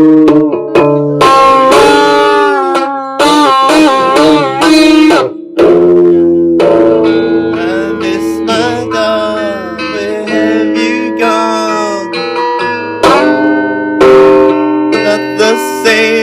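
Instrumental break in a song, led by guitar, with several notes bending up and down in pitch.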